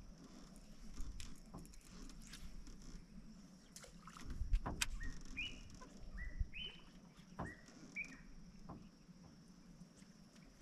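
A bird calling a run of about six short whistled notes, each sweeping up and then holding, over a steady high insect hum. A dull knock, the loudest sound, comes just before the calls, with scattered small clicks.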